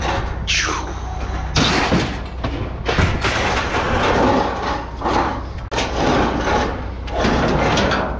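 Scrap metal being thrown from a pickup bed onto a scrap pile: a rapid run of clattering bangs and crashes, with one falling metallic screech about half a second in. A steady low hum runs underneath.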